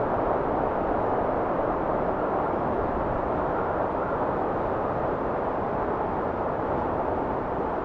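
Steady wind noise with a slight slow ebb in loudness.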